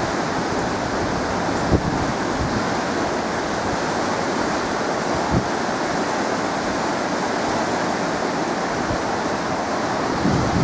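Steady rush of high water pouring through an open dam, with wind buffeting the microphone and two light bumps.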